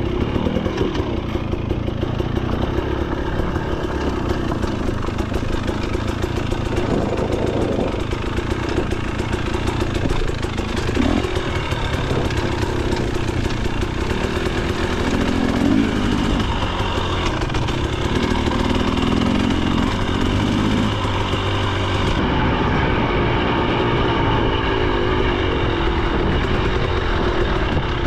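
2023 KTM 300 XC two-stroke dirt bike engine running while being ridden on a trail, its pitch rising and falling with the throttle.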